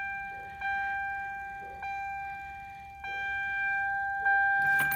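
Car's electronic warning chime sounding over and over, about once a second, each tone fading before the next, with no starter cranking or engine running: the car won't start after the key is turned.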